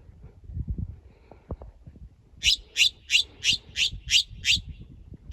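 Woodhouse's scrub-jay calling: a rapid series of seven harsh, rasping calls, about three a second, starting about halfway in. A few low thumps and rustles come before the calls.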